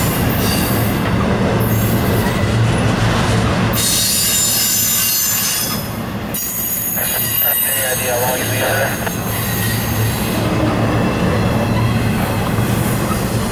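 Freight train passing close by: a steady rumble of wheels on the rails, with high-pitched wheel squeal, strongest through the middle.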